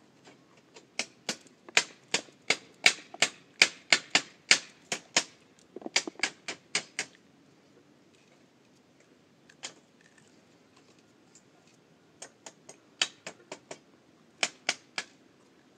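Runs of sharp, rapid knocks, about three a second: a long run of about twenty over the first seven seconds, a single knock a little past halfway, and a shorter run near the end.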